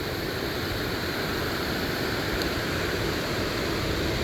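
Water rushing steadily over a small dam spillway.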